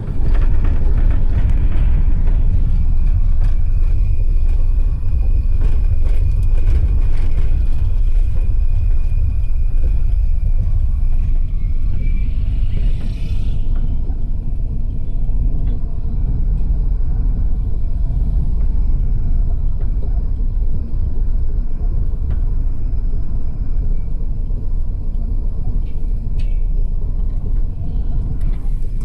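Car being driven, heard from inside the cabin: a steady low rumble of engine and tyres on the road, with a few light clicks and rattles.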